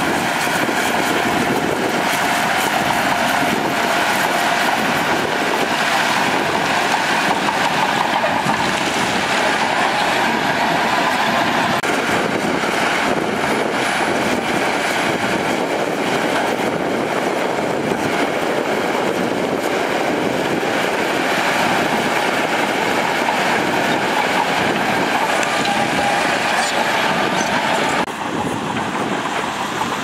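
Shantui DH17 crawler bulldozer working under load as it pushes rock and soil: loud steady diesel running with the steel tracks clanking and a faint squeal. About two seconds before the end the sound drops and changes as a dump truck tips out its load of rock.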